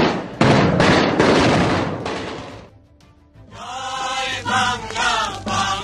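Soundtrack of loud gunfire and blasts that dies away about two and a half seconds in; after a brief lull, a choir of voices begins a chant.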